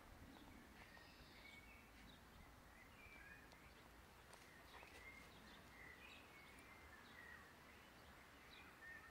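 Near silence: faint outdoor garden ambience with scattered, faint short bird chirps.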